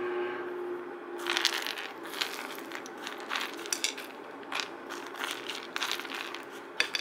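Crushed nuts sliding off a flat scraper and falling onto a ceramic plate of French toast, a run of small clicks and rattles starting about a second in and coming in uneven clusters.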